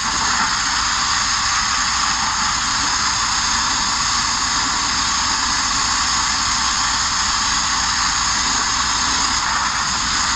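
Steady hiss of an abrasive media blaster: compressed air and grit blasting from the nozzle onto the steel body of a Mk1 Ford Transit van to strip it.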